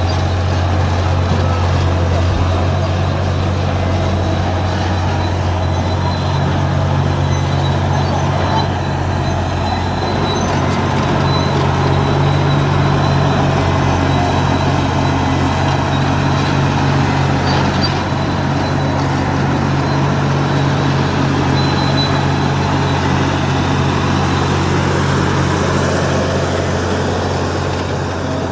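Caterpillar D7 bulldozer's diesel engine running steadily, loud and low, as the dozer pushes sand.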